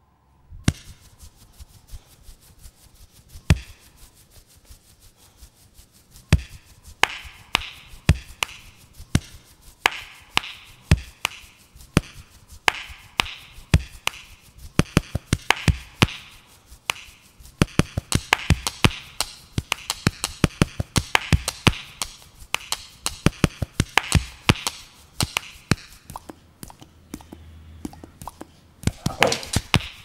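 A percussive beat made from sampled English bulldog sounds: sharp clicks and knocks, sparse at first, then from about six seconds a dense, steady rhythm. Near the end the bulldog's drawn-out howl comes in over the beat.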